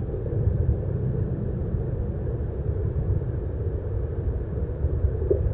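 Steady low outdoor rumble with a faint, even hum above it, and no distinct calls or knocks.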